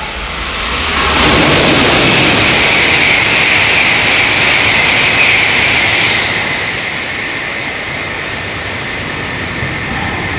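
E5 series Shinkansen passing through the station at speed: a loud rush of air and running noise that builds about a second in, holds for about five seconds, then drops to a lower steady rumble.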